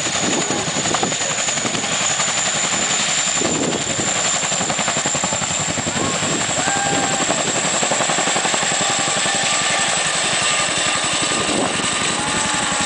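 CH-47 Chinook tandem-rotor helicopter lifting off and climbing: a rapid, steady chop from its two rotors over a steady high-pitched whine from its twin turboshaft engines.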